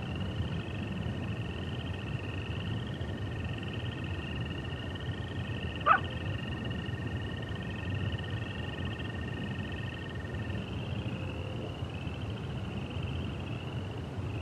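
A steady, high, warbling chorus of calling animals over a low rumble, with one short sharp animal call about six seconds in.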